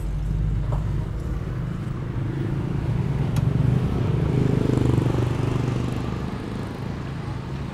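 Passenger minivan's engine idling with a low steady hum while stopped, swelling somewhat in the middle of the stretch and easing toward the end. There is a single sharp click about three and a half seconds in.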